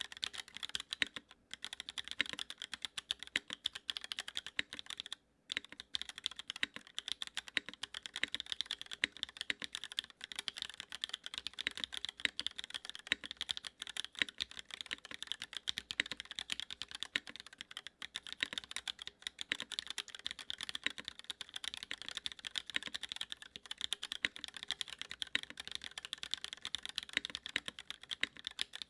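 Fast, continuous typing on a Duck Orion V3 mechanical keyboard with Cherry MX Black linear switches, an aluminium plate and no foam in the case: a dense stream of sharp key clacks, with a short pause about five seconds in.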